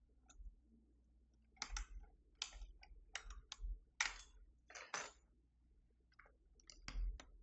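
Irregular plastic clicks and taps, about a dozen spread over several seconds, from keycaps being handled and pressed onto a mechanical keyboard's switches.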